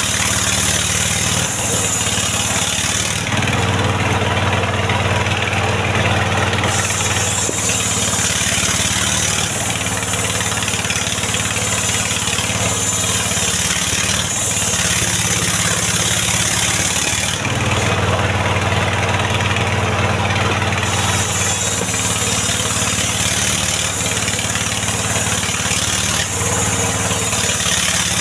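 Engine-driven mobile circular sawmill running steadily while its blade rips lengthwise through a mahogany log. Twice, about three seconds in and again about seventeen seconds in, the high hiss drops away and the low engine note grows louder for a few seconds.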